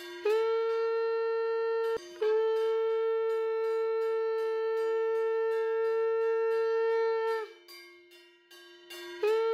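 Conch shell (shankh) blown in long, steady, horn-like blasts to see off the goddess's idol for immersion. A short blast is broken off about two seconds in, a long blast of about five seconds follows and sags in pitch as it ends, and another begins near the end. A quieter, lower steady tone holds underneath throughout.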